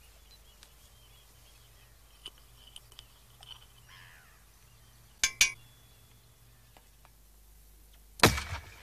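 Birds chirping faintly, then about five seconds in two sharp metallic clinks, the aluminium lager can going into the mortar tube. Near the end a single loud bang that dies away quickly: a teaspoonful of petrol vapour ignited by a spark plug in the side of a modified firework mortar, firing the can out.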